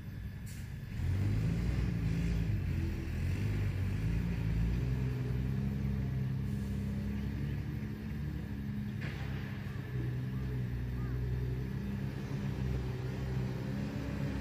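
A motor vehicle's engine running, coming up loudly about a second in, its low pitch drifting up and down.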